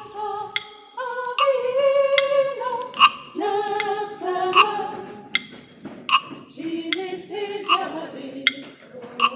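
A group of people, women's voices prominent, singing a slow hymn melody together in held, stepping notes. It is punctuated by a sharp, regular beat a little faster than once a second.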